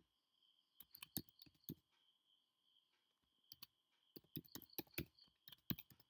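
Faint typing on a computer keyboard: irregular runs of quick key clicks with short pauses between them, as a word is typed out.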